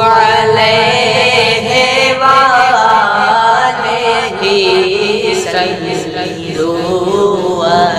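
Two young men's voices singing an Urdu naat together in a chanting style, drawing out long, wavering held notes.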